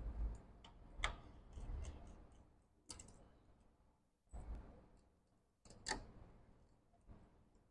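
Faint, scattered clicks and light knocks of small screws and a screwdriver being handled during laptop disassembly, with sharper clicks about a second in, near three seconds and near six seconds.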